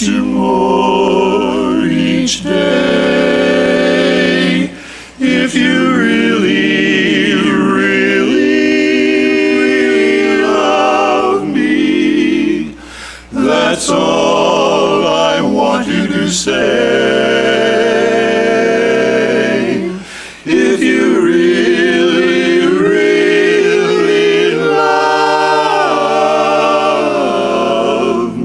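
Barbershop quartet singing a cappella in close four-part harmony, holding chords, with short breaks between phrases.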